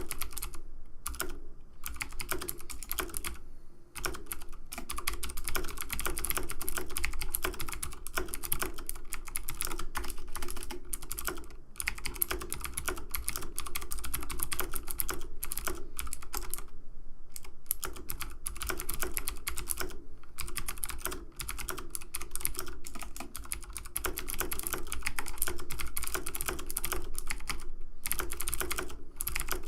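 Fast, continuous typing on a computer keyboard: a dense stream of key clicks, with a couple of brief pauses, one a few seconds in and one around the middle.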